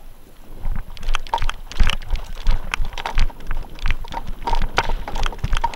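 A paintball player's quick running footsteps on artificial turf, with gear rattling and wind buffeting the microphone. The uneven knocks and thumps start about half a second in.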